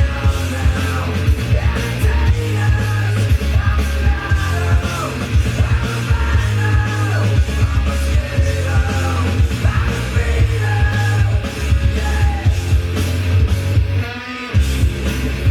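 Loud rock music with sung vocals over heavy bass; the bass drops out briefly near the end.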